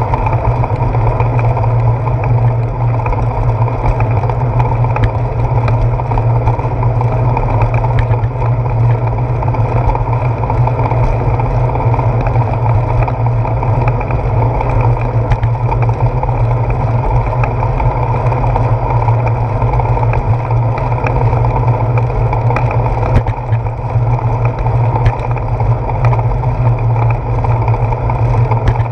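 Steady low rumble of wind and road vibration on a handlebar-mounted GoPro Hero 4 as a bicycle rolls along a paved path, with occasional small ticks.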